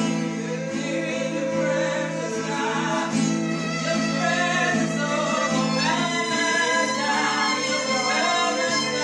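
Gospel worship music: singing accompanied by violin and acoustic guitar, with sustained held notes throughout.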